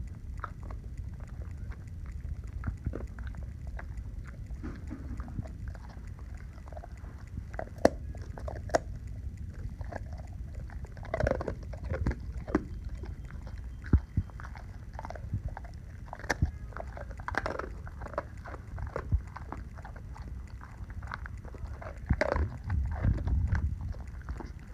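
A Weimaraner–Labrador mix dog biting and chewing a hard biscuit treat: irregular crunches and mouth clicks, louder and denser about halfway through and again near the end.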